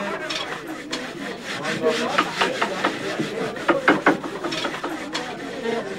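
Hand tools scraping and shaving wood during woodcarving: a quick, irregular run of rasping strokes, several a second.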